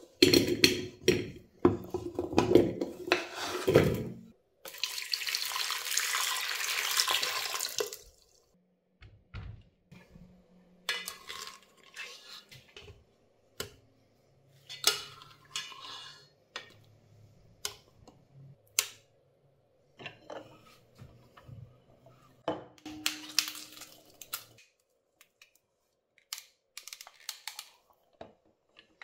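Cut potato chunks tumbling off a wooden board into a pot in a run of knocks, then water running into the pot for about three seconds. After that, scattered clicks and knocks of a plastic potato ricer and pot being handled, with the ricer pressed near the end.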